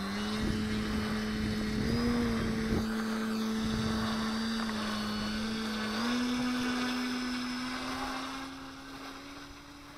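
Model autogyro's motor and propeller running with a steady hum, stepping up in pitch twice as it is throttled up for takeoff, then fading from about eight seconds in as the gyro moves away.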